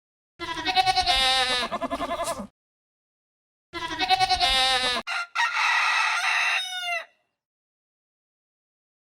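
Two wavering bleats, then a rooster crowing once, its call ending in a falling glide. Each call stops abruptly into silence.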